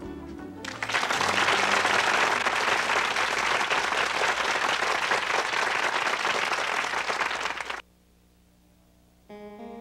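The last notes of a song die away, then an audience applauds steadily for about seven seconds before the applause is cut off suddenly. After a short silence, music starts again near the end.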